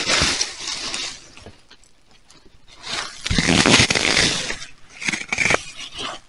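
Dry fallen leaves rustling and crunching in bursts as someone rummages and shifts through the leaf litter, with a pause of about a second in between and a few short scrapes near the end.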